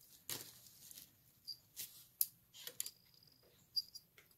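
Faint clicking of wooden beads on bracelets worn on the wrist as they are handled, with a few light tinkles from a small metal bell on one of the bracelets.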